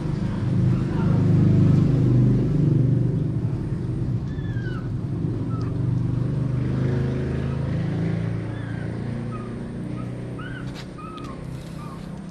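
A motor vehicle's engine running, loudest about two seconds in and then slowly fading away, with short bird chirps from about four seconds on.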